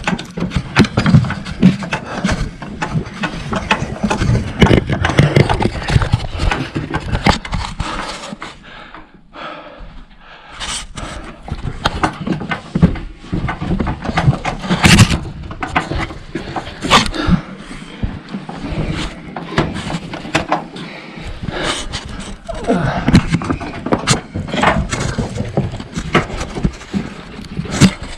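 Climbing an old wooden ladder with the camera held in hand: repeated knocks, bumps and scrapes of the camera and hands against the wooden rails and rungs. There is a briefly quieter stretch about nine seconds in.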